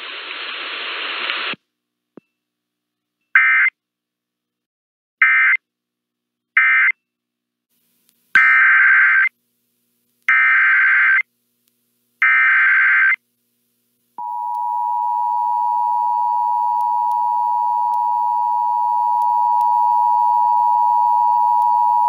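NOAA Weather Radio Emergency Alert System signal. Three short data bursts close the previous warning, then three longer data bursts announce the next warning. A steady 1050 Hz warning alarm tone starts about fourteen seconds in and holds for about eight seconds.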